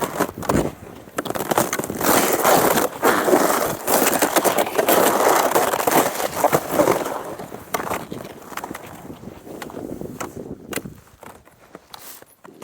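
Cross-country skis scraping and gliding over snow. The sound is loud for about the first seven seconds, then fades, with a few sharp clicks near the end.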